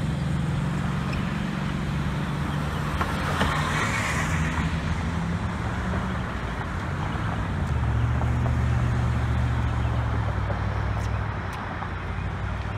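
Street traffic: a steady low engine hum from vehicles, with a car passing about four seconds in. About eight seconds in, the hum drops to a lower pitch and gets a little louder.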